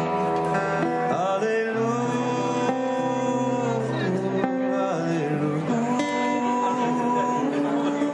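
Instrumental passage on acoustic guitar and harmonica. Long held harmonica notes that step and bend between pitches carry the melody over steady guitar strumming.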